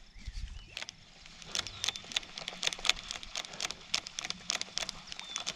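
A rapid, irregular run of sharp clicks and taps that starts about a second and a half in and keeps going, with a few short bird chirps and a low thump near the start.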